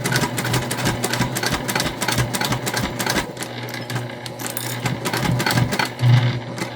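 Sewing machine stitching binding onto a bag seam, the needle going in a fast, even rapid ticking with a steady motor hum underneath.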